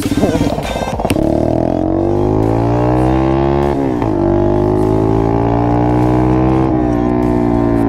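50cc mini dirt bike engine pulling away and accelerating. Its pitch climbs, falls sharply about four seconds in, then climbs again and levels off near the end. Background music with singing ends in the first second.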